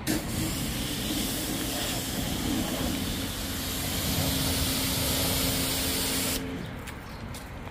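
Pressure-washer jet spraying water onto a motorcycle: a steady hiss with a low hum under it for a few seconds, cutting off about six and a half seconds in.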